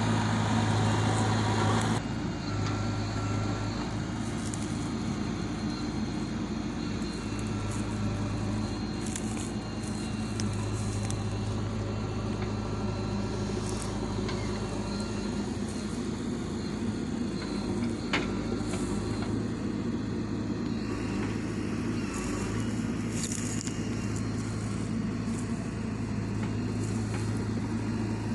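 Diesel engine of a JCB 3DX Xtra backhoe loader running steadily as it works. It drops a little in level about two seconds in, and there is a single sharp click about two-thirds of the way through.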